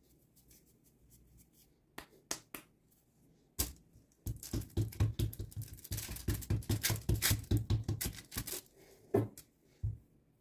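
Hands working cookie dough on parchment paper: a few light clicks and a knock, then a quick rhythmic run of scratching, rubbing strokes, about four or five a second, that stops near the end with one more knock.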